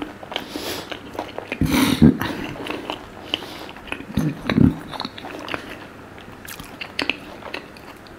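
A person biting and chewing food close to the microphone, with many small wet mouth clicks and crunches, and louder bites about two seconds in and again just past four seconds.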